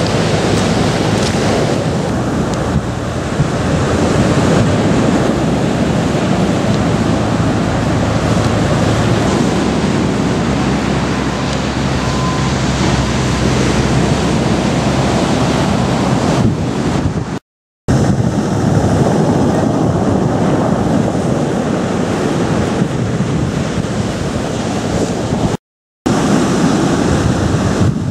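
Rough surf breaking on a pebble beach, a steady loud rush, with wind buffeting the microphone. The sound cuts out completely for a moment twice, a little past halfway and near the end.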